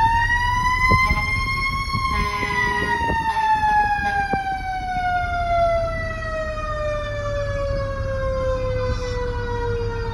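Fire truck siren, heard from inside the cab: a wail that peaks about two seconds in and then slowly falls in pitch, over the low rumble of the truck.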